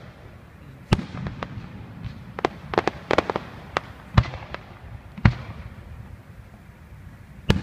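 Aerial fireworks display going off: heavy single bangs about a second in, at around four and five seconds and again near the end, with a quick cluster of smaller cracking reports in between.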